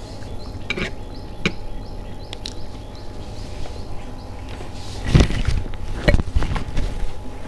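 Eating sounds: chewing mouthfuls of food, with a few soft clicks in the first couple of seconds and louder bursts about five and six seconds in.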